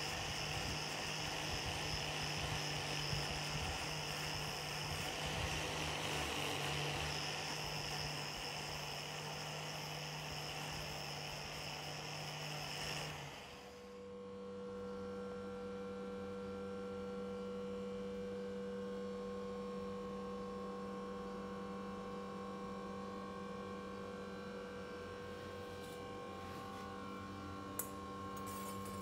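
Angle grinder with a cup brush running and scrubbing rust off a steel blade. About halfway through it stops abruptly and gives way to a quieter, steady electric hum, with a single click near the end.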